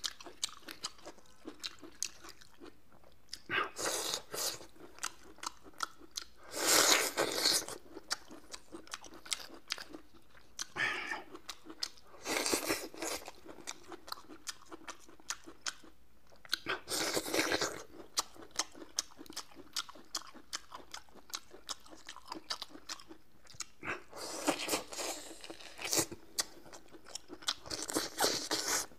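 Close-up eating sounds of a man biting and chewing a peeled bamboo shoot: bursts of loud crunching every few seconds, with small sharp clicks of chewing in between.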